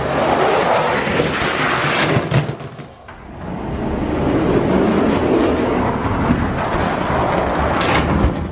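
Die-cast Hot Wheels monster trucks rolling down a long orange plastic drag track, a steady rattling rumble, with a sharp clack near the end as they reach the finish.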